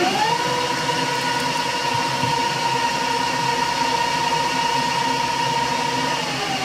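Metal lathe running at speed with a steady mechanical whine, having just come up to speed. Near the end the whine steps down to a lower pitch and holds there.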